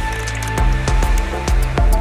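Instrumental music with deep bass-drum hits and sustained held tones.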